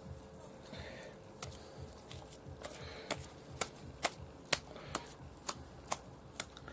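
Raw minced meat being slapped and patted between the palms to shape a cutlet: a run of short, soft slaps, about two a second, more distinct in the second half.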